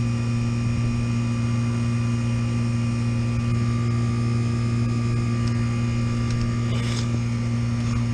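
Steady machine hum from a running York rooftop HVAC unit, with a strong low tone and an even level; a brief click about seven seconds in.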